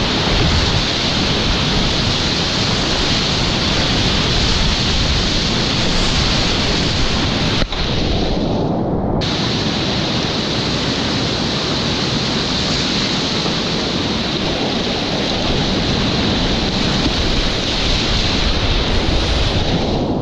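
Loud, steady rush of whitewater rapids heard close up, with one brief click about eight seconds in.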